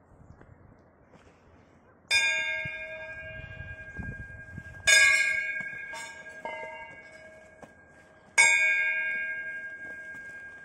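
Hanging metal temple bells struck three times, about two, five and eight seconds in. Each strike rings out with several clear tones that fade slowly, and there are a couple of lighter strikes between the second and third.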